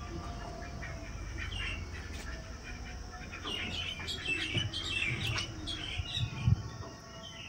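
Small birds chirping in quick short notes, thickest around the middle, over a steady low rumble, with one dull thump near the end.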